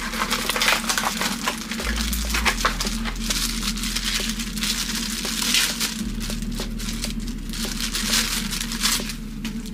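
Plastic figure packaging being handled and unwrapped: a dense run of crinkling and crackling with small clicks and taps of hard plastic parts.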